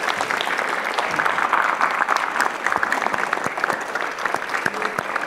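Audience applauding: many people clapping together in steady, sustained applause.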